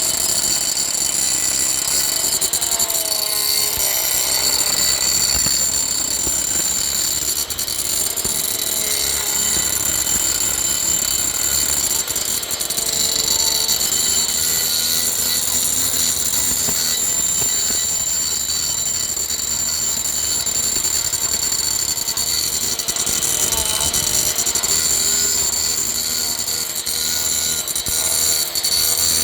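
A 115 mm angle grinder fitted with a carbide-toothed carving disc, running and milling wood with a steady high-pitched whine. Its lower tone wavers up and down as the load changes.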